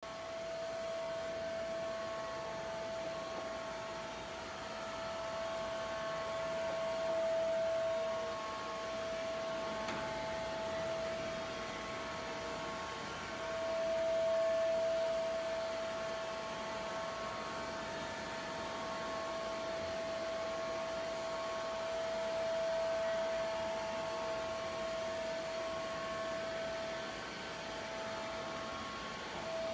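Robot vacuum cleaner running: a steady motor whine that swells louder and fades back several times, loudest about halfway through.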